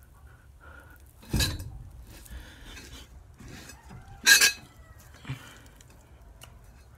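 Two sharp metallic clanks about three seconds apart, the second ringing briefly, with quieter handling noises between.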